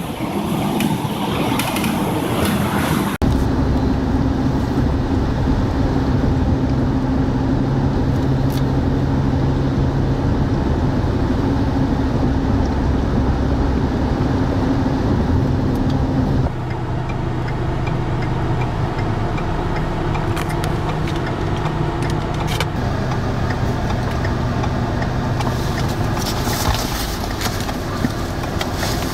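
Steady drone of a vehicle's engine and road noise, changing abruptly about three seconds in and again halfway through.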